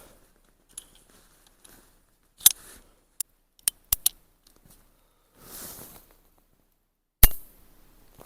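Cimarron .45 Long Colt single-action revolver being worked: several sharp metallic clicks of the cylinder and hammer, then one louder snap of the hammer falling near the end without a shot. The round does not fire, a light primer strike that the shooter puts down to the hammer catching and not going all the way forward.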